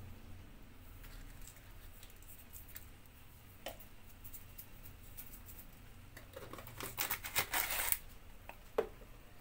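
Salt being pinched and sprinkled by hand into a pot of simmering soup: a few faint clicks, then about seven seconds in a short burst of crackly rustling, and a sharp click near the end.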